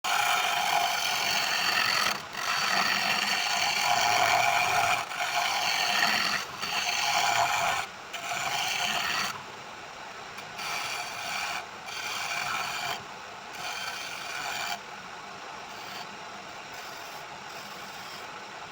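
A tool scraping and cutting wood in repeated rasping passes of a second or two each, with short breaks between them. The passes are loud at first, softer from about halfway, and give way to a steadier, quieter hiss near the end.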